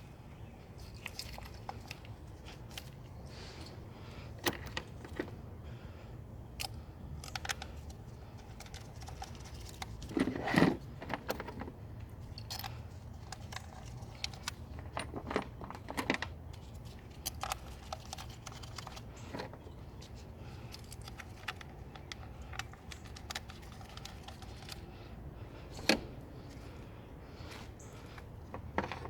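Metal hand tools and small parts clinking and clattering during work on an engine, in many scattered short clicks with a louder clatter about ten seconds in. A steady low hum runs underneath.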